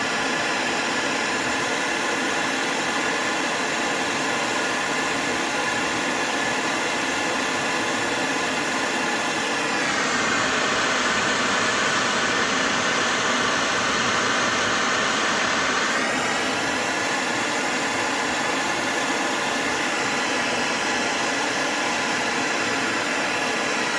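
Electric heat gun blowing steadily, with a faint fan-motor tone under the rush of air. The sound grows brighter for about six seconds in the middle, then settles back.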